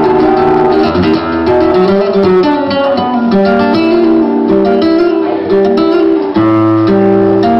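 Flamenco acoustic guitar playing, strummed and plucked, with sharp percussive clicks scattered over the notes.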